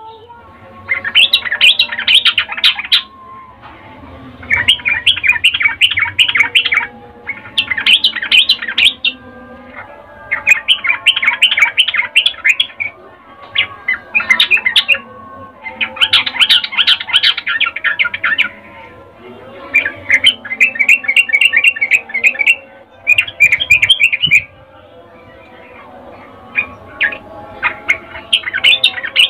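Yellow-vented bulbul (trucukan) calling in bursts of rapid chattering notes: about nine bursts of one to two and a half seconds each, with short pauses between. This is presented as a female's breeding call to a male, used as a lure to set male bulbuls singing.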